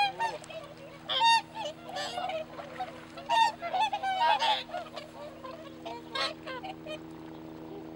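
A flock of whooper swans calling: many short honking calls from several birds at once, busiest in the first half and thinning out after about six seconds.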